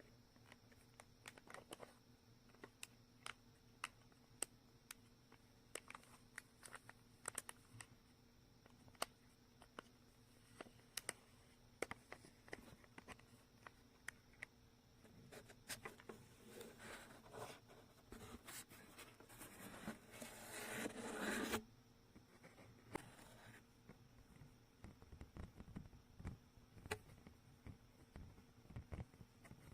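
Faint unboxing sounds of a gift package being handled: scattered light taps and scratches, with a louder rustle of packaging lasting about two seconds that cuts off suddenly about two-thirds of the way through.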